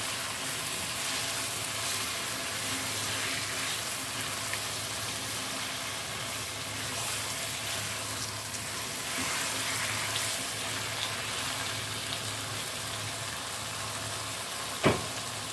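Chicken pieces frying in a spiced tomato base in a granite-coated pan, sizzling steadily as a spatula stirs them. One sharp knock near the end.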